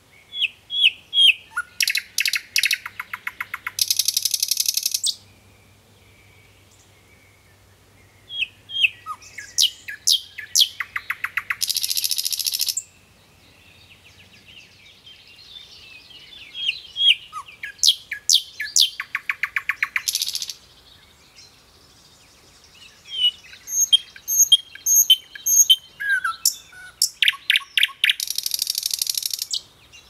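A nightingale singing: four loud phrases with short pauses between them. Each phrase opens with a few separate whistled notes, speeds into fast repeated notes, and ends in a rapid dry rattle.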